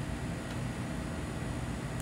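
Steady mechanical hum and hiss of a commercial kitchen's running equipment.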